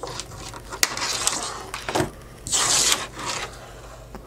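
Handling noise from a coax cable with a metal connector being set on a wooden desk: a sharp click a little under a second in, then a few short scrapes and rubs.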